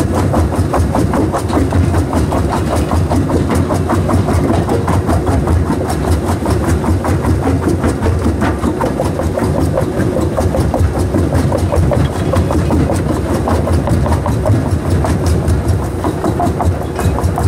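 Small jaw crusher running and crushing a load of rocks and bricks: a steady machine drone under a continual rattle of stone cracking and knocking between the jaws.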